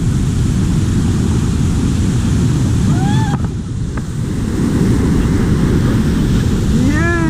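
Rushing river whitewater churning around a raft in a rapid, heavy and steady, with wind buffeting the microphone. Short yells from the rafters about three seconds in and again near the end.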